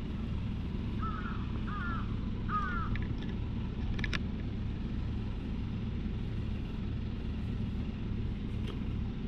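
A crow cawing three times in quick succession about a second in, over a steady low rumble, with a couple of faint clicks later on.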